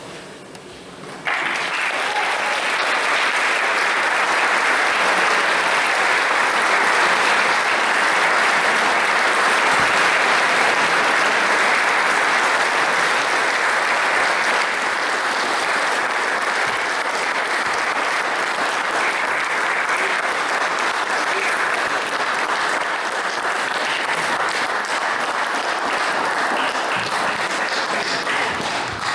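Audience applauding: the clapping starts about a second in, just after the music ends, and continues steadily.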